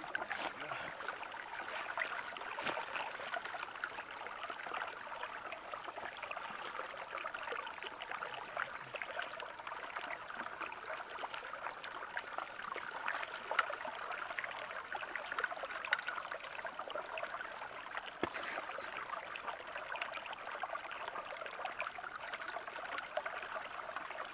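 Stream water running steadily through a metal gold sluice box, with an even trickling and rushing sound and a few faint clicks. The water is washing pay dirt that is slowly fed in from a shovel.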